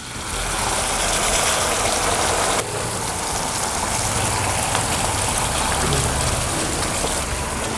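Red tomato gravy poured into hot ghee and spices in a frying pan, sizzling and spattering with a steady hiss. The hiss eases a little about two and a half seconds in.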